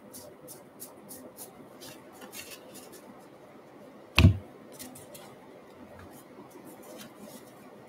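Cardboard trading cards being handled and flipped through by hand: a run of soft, short card flicks, with one loud thump about four seconds in.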